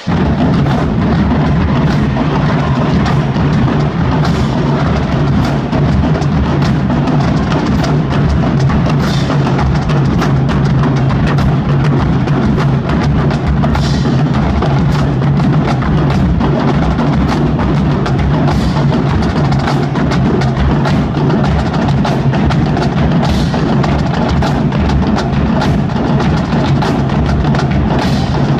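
School marching drumline playing: many drums struck together in a loud, dense, steady rhythm with bass drums underneath, and a sharp accent about every four to five seconds.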